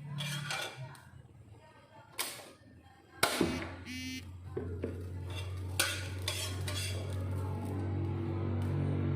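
Cookware clinking and clattering as pots and utensils are handled, with a sharp clank a little after three seconds in. A steady low hum runs underneath from that point on.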